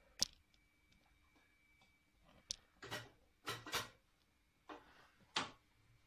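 Portafilter of a Zacconi Riviera lever espresso machine being fitted and locked into the group head: a series of short metallic clicks and knocks, a handful spread through the few seconds, over a faint steady hum.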